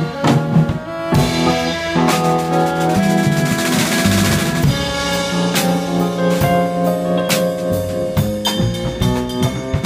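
Live small-group jazz: saxophone and trumpet holding notes over a busy drum kit, with snare and bass drum hits and a cymbal wash about four seconds in. Near the end the trumpet drops out and the saxophone carries on with the drums.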